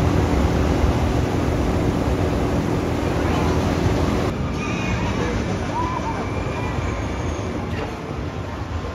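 Arrow Dynamics steel roller coaster train running on its tubular steel track: a loud, steady roar with a held hum, as the train goes through the vertical loop. A little past four seconds in it changes abruptly to a rougher rumble of the train on another stretch of track.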